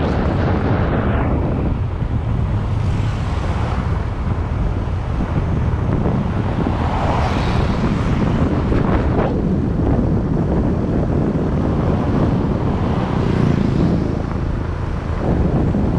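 Wind rushing over the microphone of a moving motorbike, over the hum of its engine and the road, swelling and easing in gusts every few seconds.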